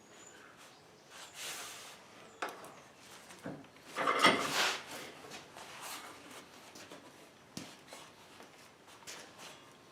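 Scattered scraping and knocking of tools and sheet metal being handled during rust repair work, the loudest a scrape about four seconds in.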